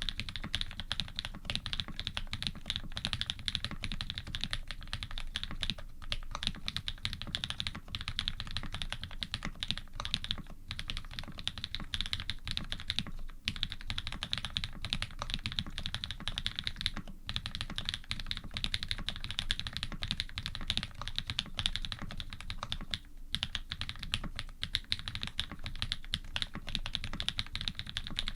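Steady fast typing on an Iron180 custom mechanical keyboard with Krytox 107-lubed linear switches (Cherry housings with Cream stems), a carbon plate, foam dampening and GMK keycaps: a dense run of key clacks, broken by a few brief pauses.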